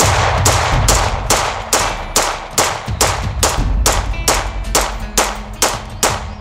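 A 9mm semi-automatic pistol fired fifteen times in steady rapid fire, about two shots a second, each shot followed by a short echo. The rounds are previously microwaved 9mm ammunition, and every one goes off normally with no misfire.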